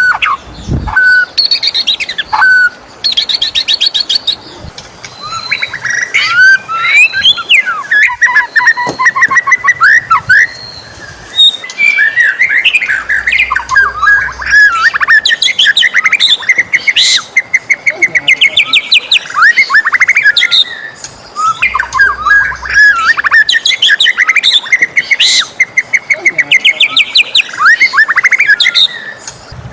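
White-rumped shama singing a loud, varied song: rapid trills, rising and falling whistles and chattering phrases, one after another with only brief pauses.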